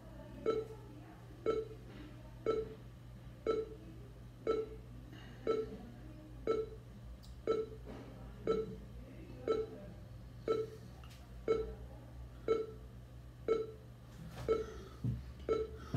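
NVDA screen reader's short busy beep repeating about once a second while it works on creating a portable copy.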